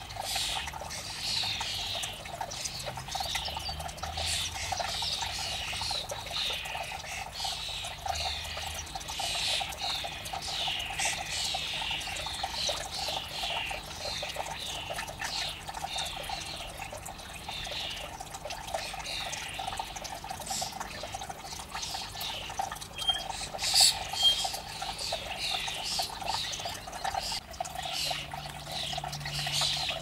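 A flock of common starlings chattering: a dense, unbroken stream of short, falling chirps and clicks, several a second.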